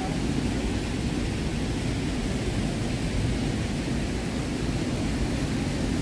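Manavgat waterfall's steady, deep rushing noise of falling water.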